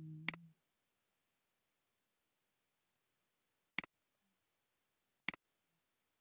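Three sharp computer mouse clicks in a quiet room, the last two each a quick double click, with a brief low murmur under the first.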